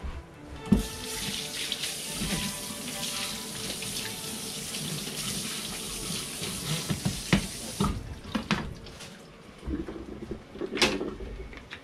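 Water running from a kitchen tap into a sink for about seven seconds, then shut off abruptly, with a few sharp knocks during and after.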